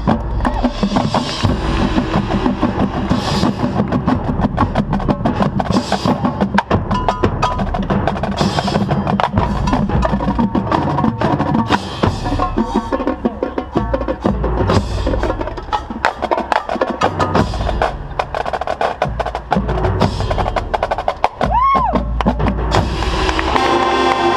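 Marching band percussion section playing a dense drum passage of snare rolls, bass drum hits and other percussion, with the band's sustained chords coming in near the end.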